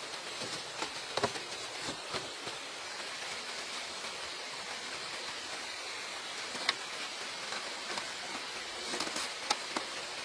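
Steady hiss of background noise with a few light clicks and taps scattered through it, the sharpest about a second in, near the middle, and a cluster near the end.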